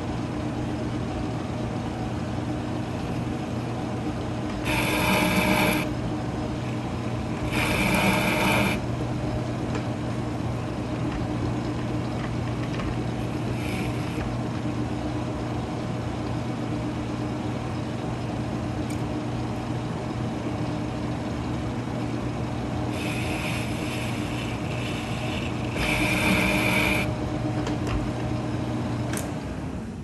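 Metal lathe running steadily as a carbide insert on a boring bar single-point cuts an internal round-profile 6-pitch thread in a ductile iron cap. Four cutting passes of about a second each stand out from the hum, two close together about five and eight seconds in and two more near the end, and the lathe then stops.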